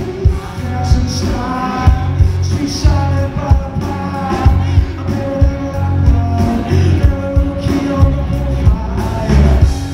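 Live rock band playing: electric guitars, bass and drum kit with singing, a heavy bass end under a steady drum beat.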